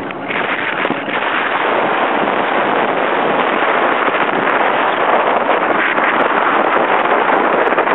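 Wind rushing over the microphone and road noise from a moving vehicle, a dense steady noise that grows a little louder after about a second.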